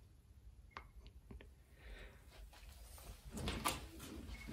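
Faint handling sounds of a laptop charger's cable and barrel plug: a few light clicks about a second in, then a brief rustle and knock about three and a half seconds in as it is put down.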